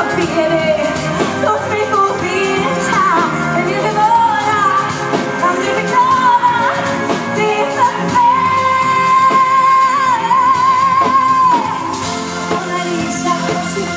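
A woman sings a pop song into a microphone over band accompaniment. In the second half she holds one long high note with vibrato, which ends a little before the close, and the band carries on more quietly.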